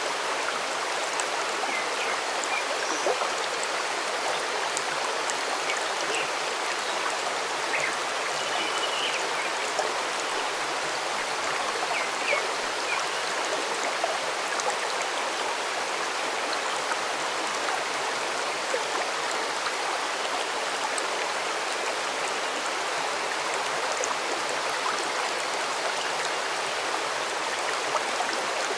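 A stream running steadily, with a few faint, short bird calls now and then.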